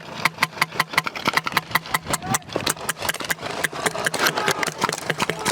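Airsoft guns firing in rapid strings, a dense run of sharp shots at roughly seven or eight a second over a low electric-motor hum.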